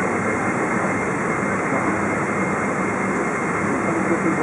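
Boeing 777-200's jet engines running at low taxi power, heard from inside the cabin as a steady whooshing noise.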